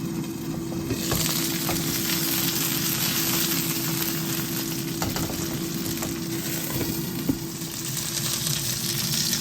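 Food sizzling in hot oil in a frying pan, the sizzle jumping up loudly about a second in and then holding steady, with a few light clicks of a utensil against the pan.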